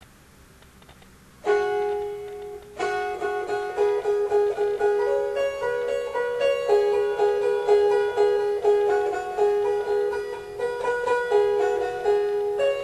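Instrumental background music of plucked string notes, beginning about a second and a half in after a quiet opening, with a short break just before three seconds.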